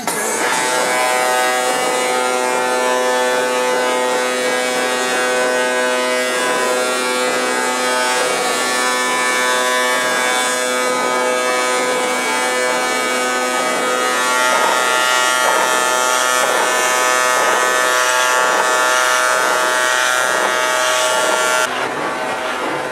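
Truck diesel engines running with a steady buzzing drone held at one fixed pitch, which changes abruptly near the end.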